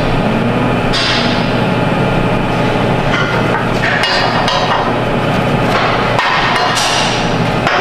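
A mallet striking a steel pipe elbow in a series of sharp, irregularly spaced knocks, tapping the fitting into place on a tubular steel handrail, over a steady background of shop machinery noise.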